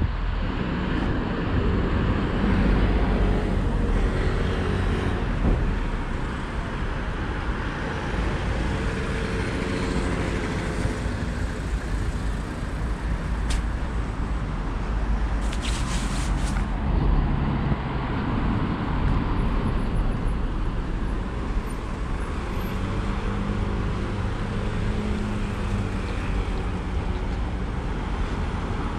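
Road traffic: vehicle engines running and passing steadily, with a short high tick about halfway through and a brief rattle just after it.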